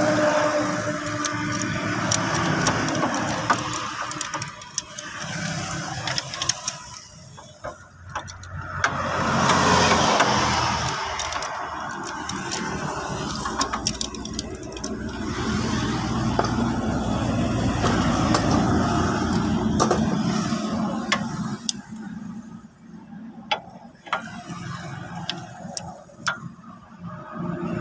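Hand tools working the spark plugs out of a Toyota Prius engine: scattered metallic clicks and knocks from the socket and extension in the plug wells, over a steady background rumble.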